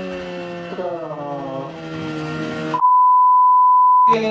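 Motorcycle engine running with its pitch slowly falling, then about three seconds in the sound is cut out and replaced by a steady censor bleep lasting just over a second, the loudest thing here, masking a swear word.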